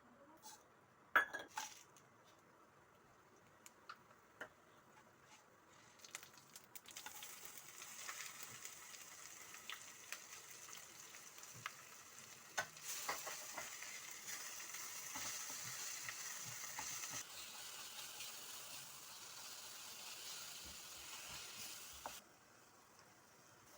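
Ingredients for mango chutney frying in a pan: a steady sizzle that starts about six seconds in and cuts off sharply near the end, with a spoon clinking and stirring against the pan. A few sharp knocks of utensils come in the first seconds.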